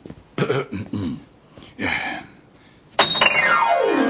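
A man clears his throat, then about three seconds in an upright piano is played with one quick downward glissando across the keys that keeps ringing.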